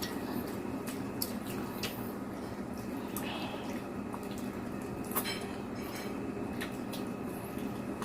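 Mukbang eating sounds: scattered small clicks of cutlery and dishes with wet mouth noises of chewing, over a steady low hum.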